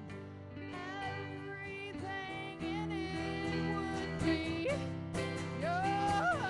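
Live band music: a female singer's voice over strummed acoustic guitar and electric guitar.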